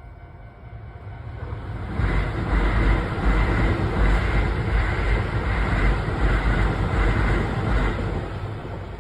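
A train passing a level crossing on the Keisei Line, its wheels rumbling on the rails. The rumble swells about two seconds in and fades near the end, with the crossing's warning bell ringing faintly beneath it.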